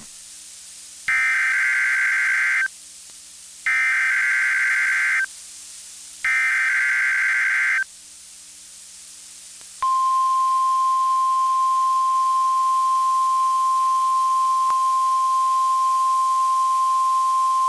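NOAA Weather Radio SAME header: three short bursts of warbling digital data tones, each about a second and a half long with brief pauses between. About ten seconds in, the steady 1050 Hz warning alarm tone starts and holds, marking a weekly test of the alert system.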